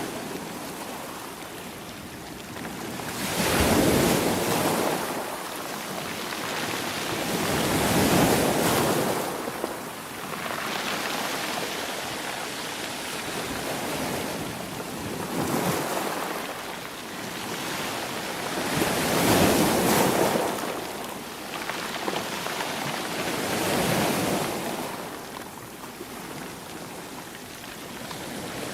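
Ocean waves breaking on the shore, a steady wash of surf that swells with each wave about every four to five seconds, some louder than others.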